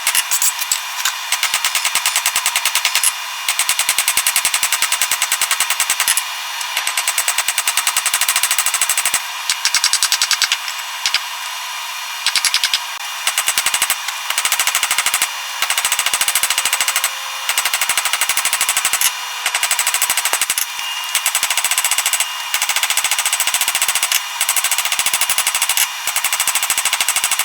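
Very fast train of metal-on-metal strikes in runs broken by short pauses: hammering on the steel billet of chainsaw chain and file during forging.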